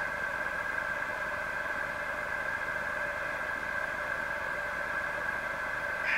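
A steady hum with a hiss, holding a few unchanging tones.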